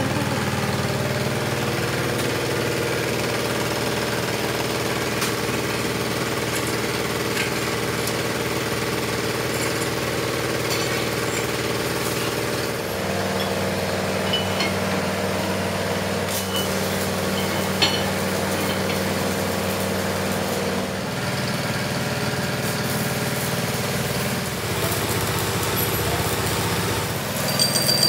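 Metal-turning lathe's motor running steadily, its hum shifting pitch about halfway through and again a few seconds later. Near the end a thin high ringing comes in as the lathe turns the welded-up axle flange against the cutting tool.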